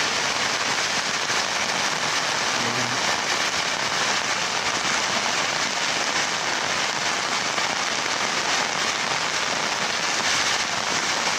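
Heavy tropical downpour: a steady, loud hiss of rain, with drops striking the fabric of an umbrella held just overhead.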